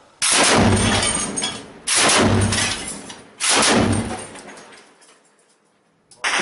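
Three bursts of machine-gun fire about a second and a half apart, each starting abruptly and dying away over a second or more. Near the end a loud steady rushing noise sets in.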